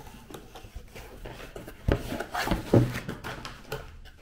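Cardboard shipping box being opened by hand: flaps and packaging rustling, with a few short knocks about two to three seconds in.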